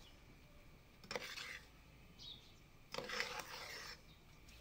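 A metal spoon stirring and scraping a dry, crumbly roasted semolina and lentil mixture in a metal pot: two short, faint scraping strokes, one about a second in and one about three seconds in.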